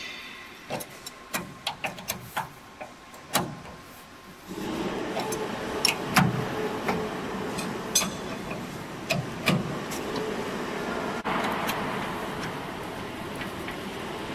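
Sharp metallic clicks and clinks of a wrench working the steel adjusting bolts of a shaker table's deck. From about four and a half seconds a steady mechanical noise with a low hum sets in, with more metal clicks over it.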